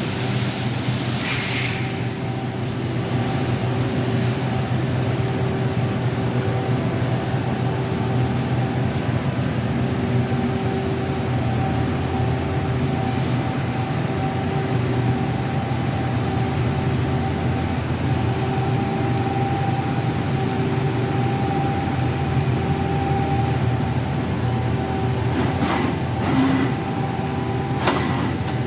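Mazak Quick Turn Nexus 250-II CNC turning center running, a steady mechanical drone with several steady hum tones. A high hiss sounds in the first two seconds, and a few short clicks come near the end.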